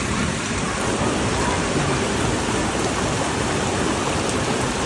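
Steady, even hiss of rushing water from heavy rain and flooding.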